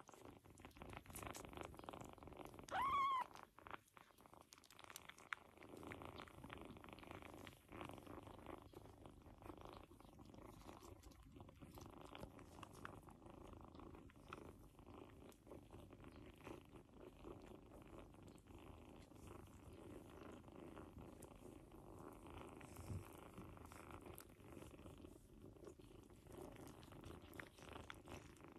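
Mother cat purring faintly and steadily while her kittens nurse. One short meow rises and falls about three seconds in.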